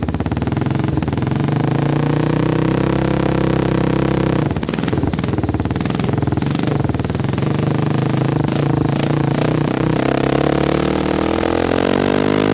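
Kawasaki KFX 400 ATV's single-cylinder four-stroke engine running, heard right at the muffler, so the sound is loud and distorted. It holds a steady pitch for about four seconds, then the exhaust crackles and pops, which is the engine backfiring. Near the end the pitch climbs as the engine revs up.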